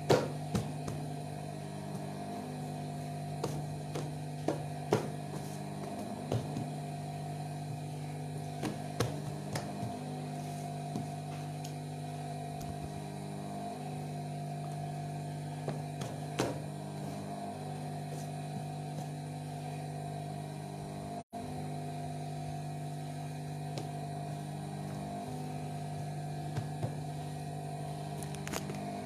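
Industrial sewing machine's motor humming steadily during machine embroidery, with scattered sharp clicks from the machine, most of them in the first half.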